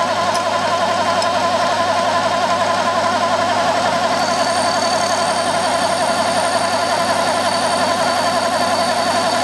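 Milling machine spindle running with an end mill cutting a keyway into a metal shaft, a loud steady drone. A thin high whine joins about four seconds in.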